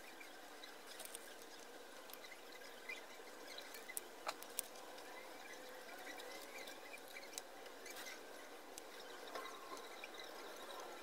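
Faint, scattered small clicks and taps of hand soldering work: a soldering iron tip and bare copper wire touching the legs of transistors bolted to an aluminium heatsink, over a low steady hiss.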